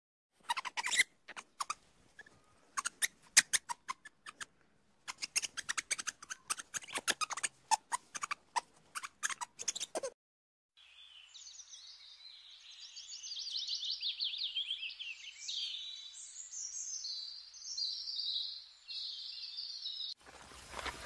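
Scattered sharp clicks and taps for about ten seconds, then after a short pause a long run of high chirping calls that slide up and down in pitch.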